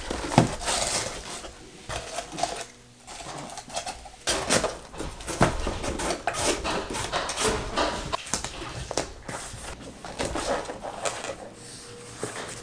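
Small white cardboard mailer boxes being packed and closed by hand: cardboard flaps folding and tucking in, kraft paper packing rustling, and many scattered taps and knocks as the boxes are set down on the desk.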